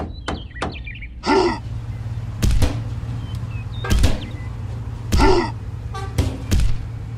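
Hammer knocking on a handmade toy tractor: a quick run of light taps, then single knocks a second or two apart, over a steady low hum. Two short pitched sound effects stand out, about a second in and again near the end.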